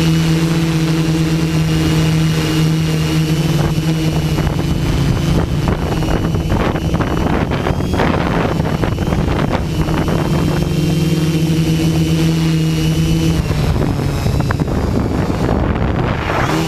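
Hexacopter's electric motors and propellers running with a steady pitched hum, under rough wind buffeting on the microphone that comes and goes in gusts. The motor pitch shifts near the end.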